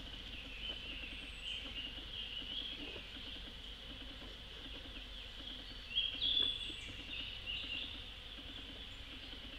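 Woodland ambience: a steady high insect drone, with birds chirping, loudest about six seconds in, over a low buzz of honey bees flying around the hives.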